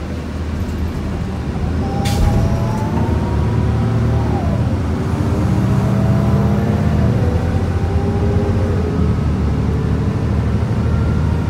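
Cummins Westport ISL-G natural-gas engine and Allison B400R6 automatic transmission of a New Flyer C40LFR city bus, heard from inside the cabin while accelerating. A steady low engine hum runs under a whine that climbs and drops back at each gear shift, twice, with a single sharp click about two seconds in.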